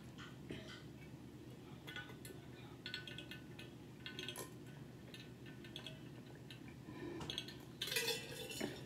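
A person drinking in long pulls from a bottle: a string of quiet, irregular gulps and swallows, a little louder near the end.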